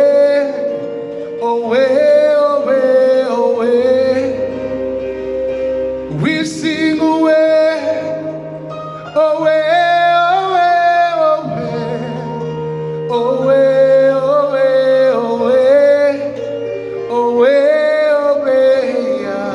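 Gospel song: sung vocals over sustained instrumental backing, with no clear words, continuing the drawn-out 'oh' chorus.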